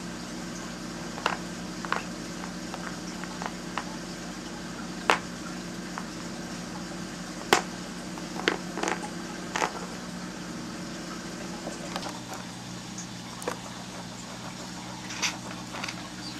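Scattered sharp clicks and taps as a budgie pecks at and knocks plastic game pawns about on a cardboard game board, the loudest two about five and seven and a half seconds in, over a steady low hum.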